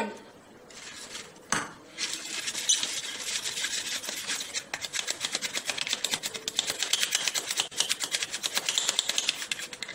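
Rapid, rhythmic rubbing strokes inside a paper baking cup as it is greased with oil, a dry scratchy sound that starts about two seconds in after a single knock.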